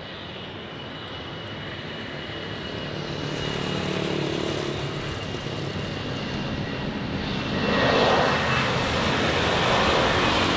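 Airbus A320 jet engines at takeoff power, a rushing noise with a thin steady high whine. It grows louder as the aircraft comes closer, and is loudest from about eight seconds in.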